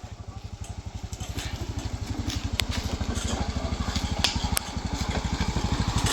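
A small motorcycle engine running with an even, rapid low pulsing that grows steadily louder, with a few sharp clicks along the way.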